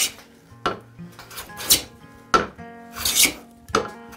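Hand plane cutting along the edge of a wooden board in about six short, quick strokes. Each stroke starts sharply and hisses off as the blade lifts a shaving.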